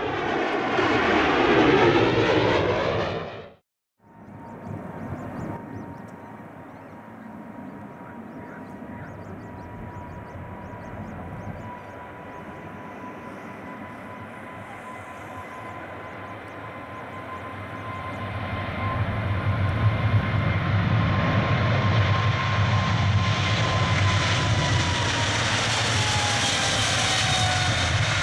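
A brief loud intro sound that cuts off after about three and a half seconds. Then a Boeing 777-300ER's GE90-115B turbofans run at takeoff thrust on the takeoff roll. A steady engine tone sits in the noise, which grows louder about two-thirds of the way in, and near the end the tone drops in pitch as the jet passes.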